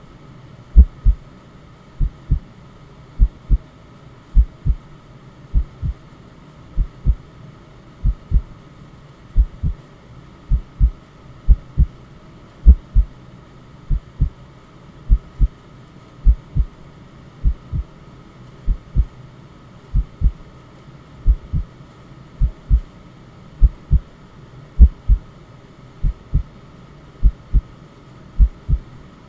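Heartbeat sound: paired low thumps, lub-dub, repeating steadily a little over once a second over a continuous background of steady white noise.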